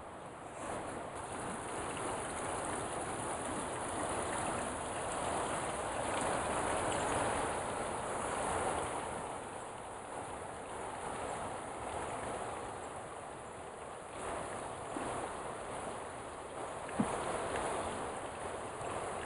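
Running water of a small creek, a steady rush that swells and fades.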